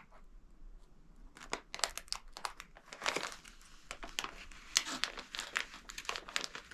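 Crinkling plastic: a seal-proof plastic bag of herbs being handled and pulled open, in quick irregular crackles that start about a second and a half in.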